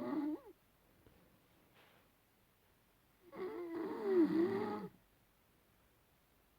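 A person snoring: the end of one snore right at the start, then one long snore about three seconds in, lasting about a second and a half, with a wavering pitch that dips and rises.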